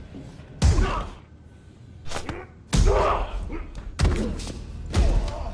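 Fight-scene punch and body-blow impacts: four heavy hits, the loudest about halfway through, each dying away quickly.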